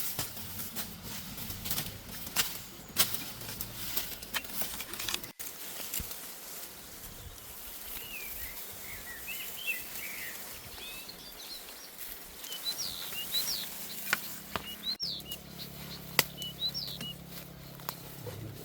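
Small birds chirping in short quick notes, over scattered sharp knocks and rustles.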